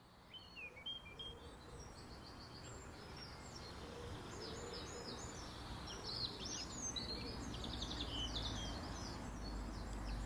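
Many birds chirping and trilling over a steady background hiss, fading in at the start, with a low rumble growing near the end.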